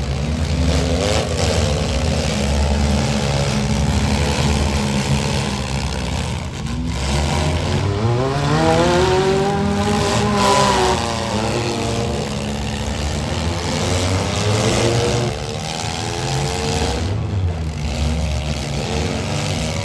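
Engines of several compact demolition derby cars running hard on the dirt track, one revving up and back down about halfway through.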